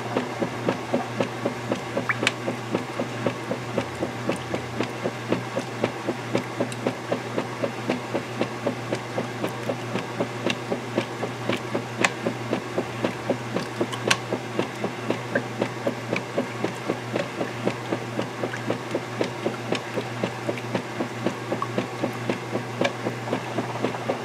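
KitchenAid direct-drive top-load washing machine agitating a load in water: its large finned agitator sloshing the wash in a quick, even rhythm over a steady motor hum, with a few sharp clicks.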